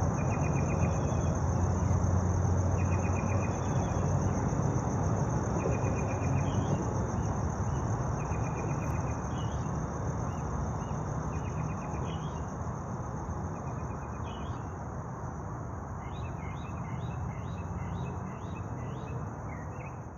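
Night crickets: a steady, high, pulsing trill, with shorter chirping calls repeating in groups every couple of seconds that come thicker about three quarters of the way in. A steady low background noise runs underneath.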